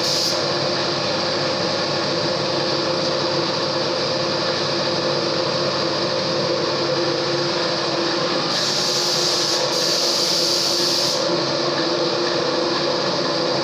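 A machine running steadily, giving a constant hum with a couple of steady tones, and a hiss that grows louder for a few seconds about two-thirds of the way through.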